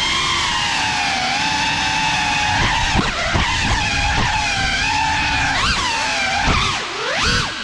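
GEPRC Cinelog 35 cinewhoop's motors and ducted propellers whining, the pitch rising and falling with the throttle as it manoeuvres. Near the end the whine drops briefly, then surges sharply.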